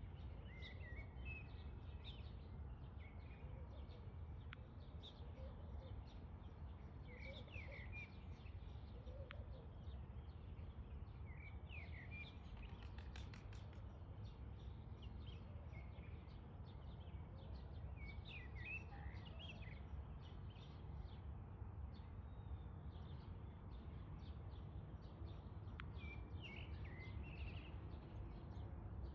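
Small birds chirping and twittering in short scattered phrases over a steady low background rumble, with a brief rapid trill about 13 seconds in.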